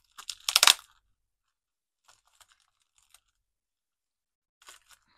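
A short burst of crinkling, tearing plastic in the first second: a thin plastic bag being pulled off the packaging card where it was partly welded on. A few faint light rustles and clicks follow.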